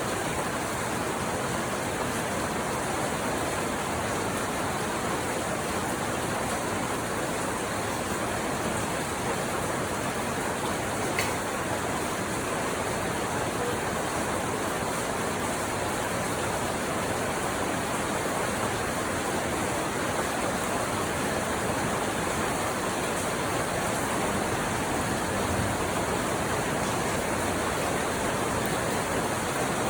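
Rain falling steadily, an even hiss that does not change, with one faint tick about eleven seconds in.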